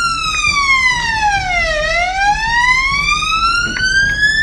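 Police siren wailing: its pitch falls for about two seconds, then climbs slowly again until near the end.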